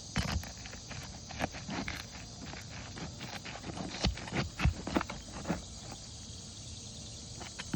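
Irregular knocks, taps and scrapes of roofing hand tools, a roof snake and hatchet, working on asphalt shingles to free their nails, with the loudest blows clustered a little past the middle, over a steady high hiss.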